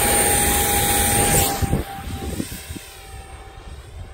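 Electric ducted fan of a 50 mm 3D-printed A-4 Skyhawk RC jet running at high throttle with a steady whine as it is hand-launched. The level drops sharply about a second and a half in as the jet flies off, and the whine carries on faintly.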